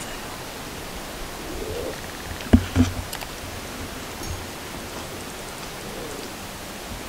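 Steady hiss of the woods, broken about two and a half seconds in by two quick, sharp knocks close together.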